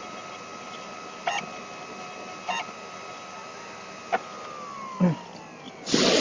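Computer DVD burner drive spinning with a steady whine through the end of a disc burn, then winding down with a falling whine as the burn completes. A few brief clicks come before it, and a loud rushing burst comes near the end.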